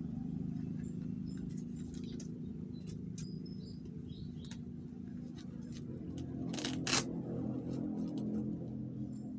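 Hands lacing up a sneaker: small scattered clicks and rustles from the laces and shoe, with one brief louder rasp about seven seconds in, over a steady low hum.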